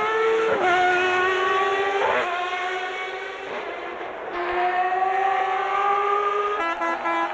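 1993 Formula One cars' high-revving engines accelerating, the pitch climbing steadily and dropping sharply at each upshift. About six and a half seconds in, the note breaks into a choppy stutter.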